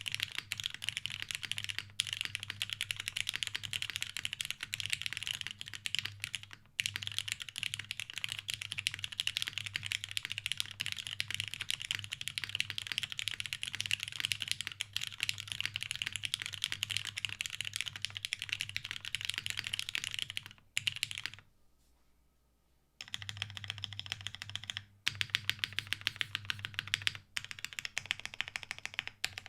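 Steady fast typing on a TGR 910 ME mechanical keyboard with lubed Cherry MX Black linear switches on an O-ring-mounted polycarbonate plate, under GMK keycaps. Dense keystrokes pause briefly about two-thirds of the way through, then resume.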